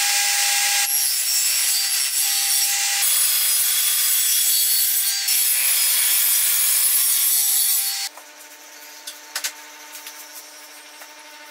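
Table saw ripping a 45-degree bevel along a wooden board fed through an angled jig: a loud, steady cutting noise with a high whine. The cut ends suddenly about eight seconds in, leaving a much quieter steady hum and a few light knocks.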